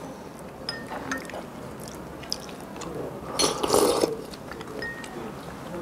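Close-up mouth sounds of crab meat and shark fin soup being eaten: wet chewing and sipping with a few light clicks, and a louder wet burst about three and a half seconds in.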